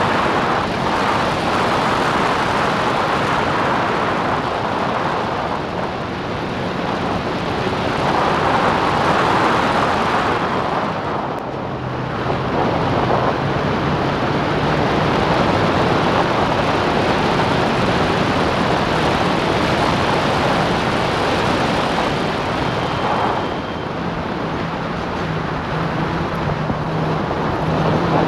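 Onboard sound of an open-cockpit racing car at speed: the engine running hard under a thick rush of wind on the camera microphone. The sound dips briefly three times, as the car lifts off and slows for corners.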